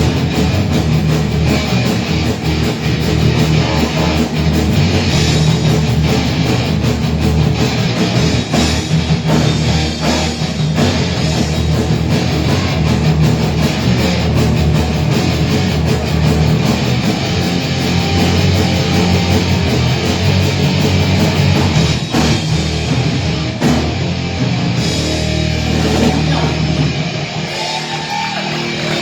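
A rock band playing live, loud, with electric guitars and drum kit in an instrumental passage without vocals. Near the end the bass drops away and the playing thins out.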